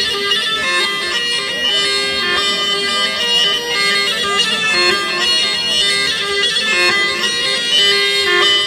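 Turkish folk line-dance music led by a shrill reed wind instrument playing a continuous, ornamented melody that keeps returning to one held low note.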